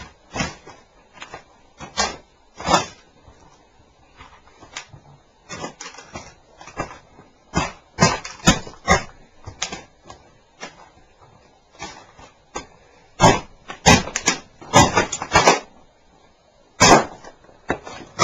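Heavy motocross boots stomping on and grinding a broken cassette recorder, its plastic casing and parts cracking and crunching underfoot. The cracks and knocks come irregularly, sparse at first and then in dense clusters around the middle, again in the latter third and once more near the end.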